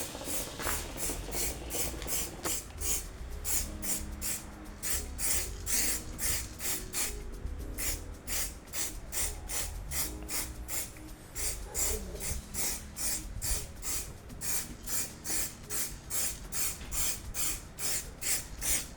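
Stiff small brush scrubbing a car engine's casing in quick back-and-forth strokes, about four to five a second, with music playing underneath.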